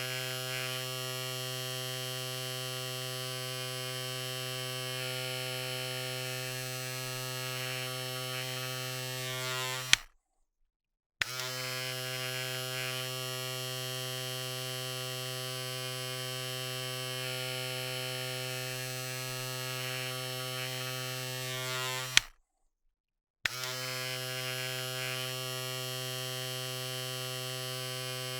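Electric razor running with a steady buzz. It is switched off with a click about ten seconds in and back on a second later, then switched off and on the same way about twelve seconds after that.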